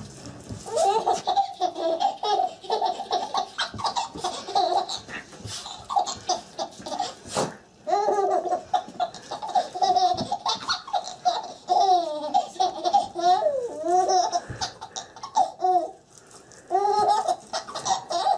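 A baby laughing in long, repeated bouts of high-pitched giggles, with a short pause near the end.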